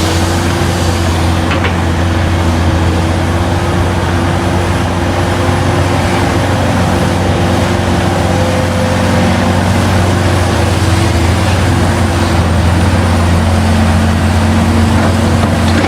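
Heavy diesel engine of a large mining excavator running steadily, with a constant low drone.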